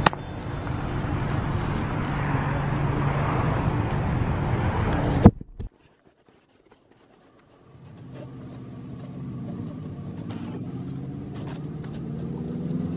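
Street traffic: the noise of passing and running cars, with a steady low engine hum. It cuts off abruptly about five seconds in, and after a couple of seconds of silence the traffic noise fades back in, quieter.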